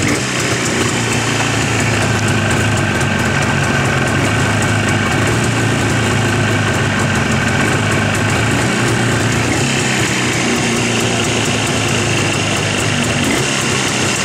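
Jawa 350 motorcycle's two-stroke twin-cylinder engine running steadily at idle.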